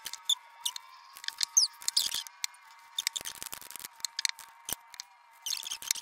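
Tarot and oracle cards being handled: drawn off the deck and laid down on a cloth-covered table, a scattered run of short papery snaps and swishes.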